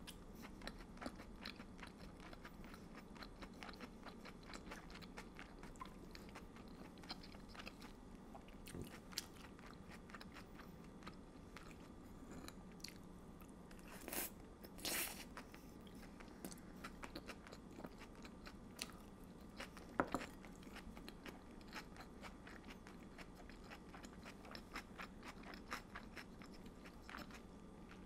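Close-miked eating: chewing and biting on chicken, noodles and bell peppers, a steady run of small wet mouth clicks, with a few louder slurps of noodles about halfway through.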